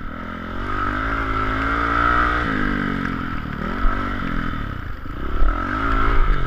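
Dirt bike engine revving hard while riding a motocross track. The pitch climbs, drops suddenly about two and a half seconds in, then rises and falls several more times as the throttle is worked through the turns.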